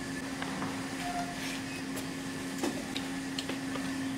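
A steady low hum throughout, with scattered small clicks and taps of people eating rice and curry by hand from plates.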